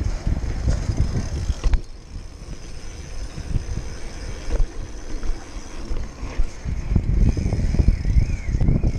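Wind buffeting the microphone with an uneven low rumble, as from riding a bike. A sharp click comes just under two seconds in, and a faint wavering high tone runs through the last few seconds.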